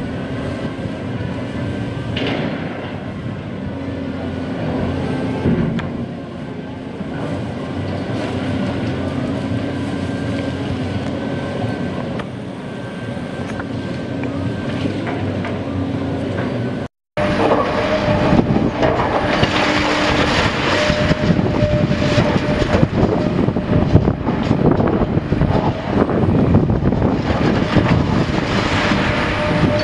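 Cat 330D hydraulic excavator's diesel engine running steadily as it digs in rocky dirt. After a brief dropout about 17 s in, a large Cat excavator demolishing a concrete structure: its engine under load with dense crunching and clattering of breaking concrete and falling rubble, louder than before.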